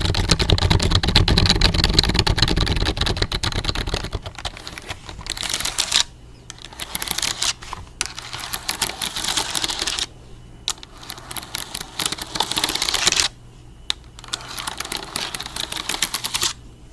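Rapid typing on a computer keyboard, a dense run of key clicks in several fast bursts separated by short pauses.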